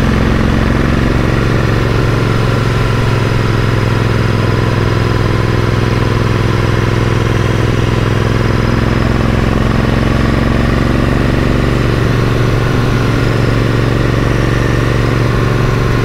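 Royal Enfield Interceptor 650's parallel-twin engine running steadily under load through aftermarket AEW mufflers, pulling smoothly with no coughing or stumbling, its fuelling richened by a BoosterPlug.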